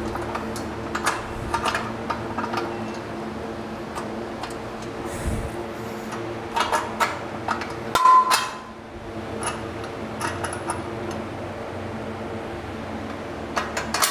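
Metal clinks and taps from a steel bolt being pushed through the bench's steel pipe and side plates and a nut being turned on by hand, with a louder ringing clink about eight seconds in. A steady low hum runs underneath.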